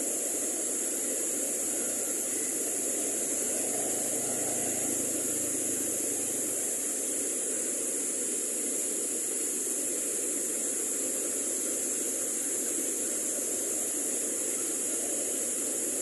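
Mountain waterfall and stream cascading over rocks: a steady rush of water, with a steady high hiss over it. A faint motorcycle engine hum comes through briefly about four seconds in.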